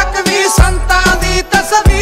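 Music from a Punjabi song: a steady beat over heavy bass, with bending melodic lines above it.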